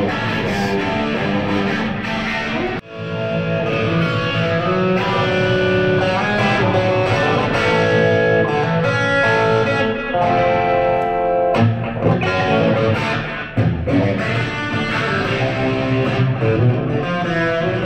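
Electric guitar played through a Marshall half stack, a melodic passage of held, ringing notes. The playing drops out briefly just under three seconds in, then goes on.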